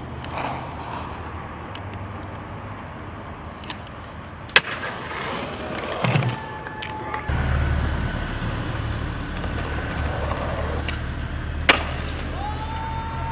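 Skateboard wheels rolling on concrete with a steady low rumble that grows stronger about halfway through. Two sharp clacks of the board popping or landing come several seconds apart. Faint thin whistling tones are heard now and then.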